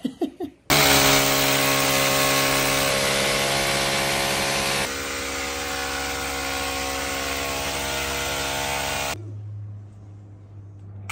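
Electric power drill running steadily for about eight seconds, then cutting off, leaving a low hum.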